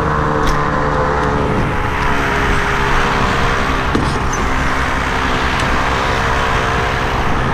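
Engine on a bowfishing boat running steadily at an even pitch, with a few light clicks from handling gear.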